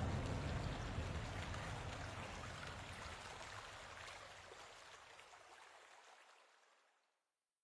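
Flowing water with fine splashing ticks, fading steadily out to silence about seven seconds in.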